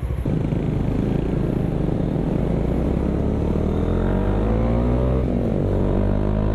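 Bajaj Dominar 400's single-cylinder engine running through an aftermarket Akrapovic M1 exhaust while riding. The exhaust note rises steadily in pitch as the bike accelerates, dips briefly about five seconds in, then rises again. It has a crisp tone.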